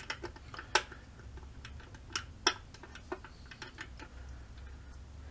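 Clicking of a Rolls Razor's metal case and blade holder being worked by hand: a run of sharp clicks at uneven spacing, two of them louder, under a second in and about two and a half seconds in.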